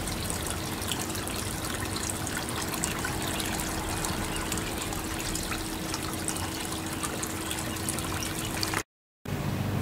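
Water trickling steadily in a small garden pond, with a faint steady hum underneath. The sound cuts out for a moment near the end.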